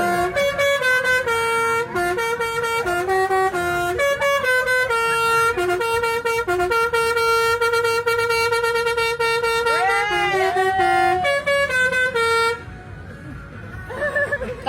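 Bus telolet musical air horn playing a long run of stepped notes, often two or more at once, each note changing every fraction of a second, with a few swooping rises and falls about ten seconds in. It stops about twelve and a half seconds in, leaving quieter background noise.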